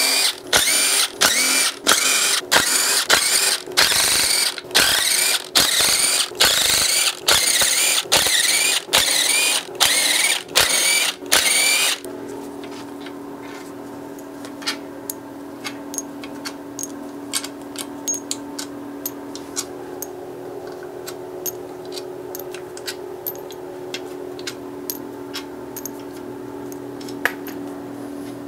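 A cordless power tool with a socket running in over a dozen short bursts as the oil pan bolts come out. It stops about twelve seconds in, leaving a steady hum with scattered light clicks and taps.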